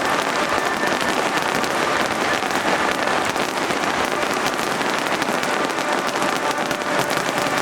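Fireworks finale barrage: a dense, continuous crackling of many crackling stars going off at once, with no pauses.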